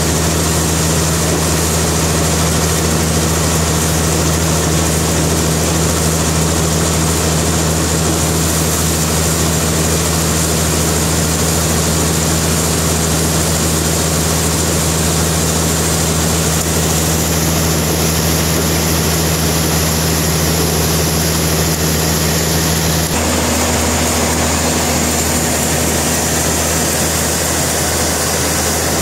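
Sawmill machinery running steadily: a loud, even engine drone with a low hum. About 23 seconds in, one of its tones steps up to a higher pitch.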